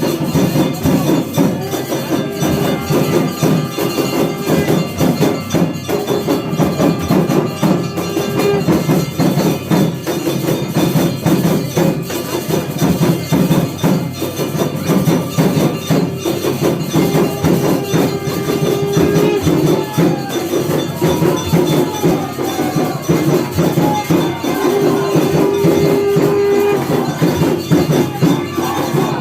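Aarti music: temple bells, hand cymbals and drums struck rapidly and continuously in a dense clanging rhythm. A held tone rises over it three times: early on, about two-thirds through, and near the end.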